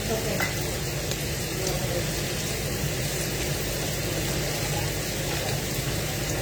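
Food frying in a pan: a steady sizzle, with a low steady hum underneath and a faint clink shortly after the start.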